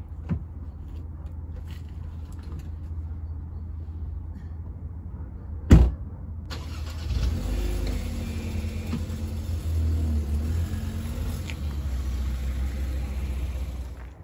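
A car door shuts with a sharp thud. About a second later the car's engine starts and settles into a steady idle, swelling and easing slightly.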